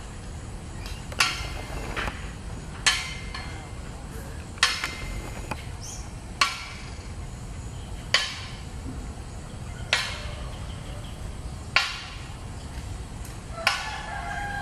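Eight sharp knocks at an even pace, one about every two seconds, each with a short ringing tail, over a steady low background rumble. A brief pitched call sounds near the end.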